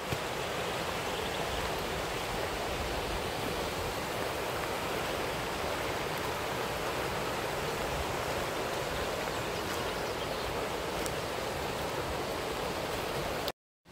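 Shallow rocky river rushing over boulders in white-water rapids: a steady, even rush of water.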